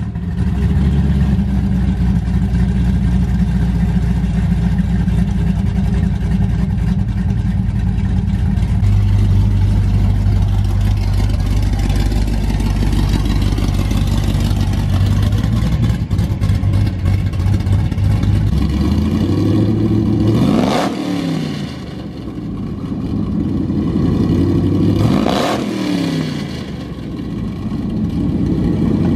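Straight-piped Chevrolet Camaro ZL1's supercharged 6.2-litre V8, just fired up, idling with a loud, steady drone. Its idle changes pitch partway through, and it is revved twice in the last third, a few seconds apart, each rev falling back to idle.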